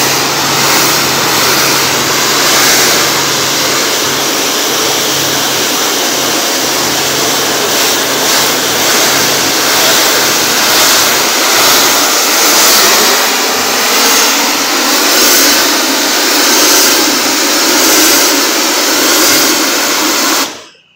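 Pressure washer jet spraying onto concrete: a loud, steady hiss of water with the machine's engine humming underneath, the hum fading about halfway through. The sound cuts off abruptly just before the end.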